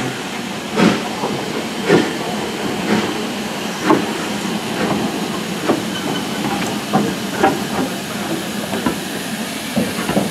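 LMS Stanier Class 5 4-6-0 steam locomotive moving slowly, with a steady hiss of steam and a regular sharp beat about once a second that comes quicker near the end.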